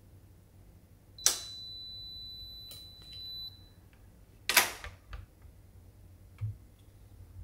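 Electronic locker lock read by a key card: a click and a steady high-pitched beep lasting about two seconds. Then a loud clack as the locker door unlatches and is pulled open, followed by a few smaller knocks.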